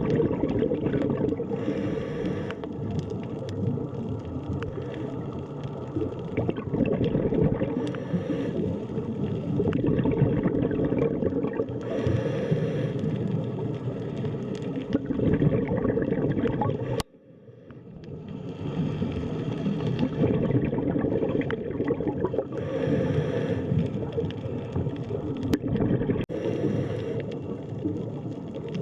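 Underwater sea ambience: a continuous low, rumbling wash of water with bubbling, brightening now and then. About 17 seconds in it cuts out abruptly and swells back in over a couple of seconds.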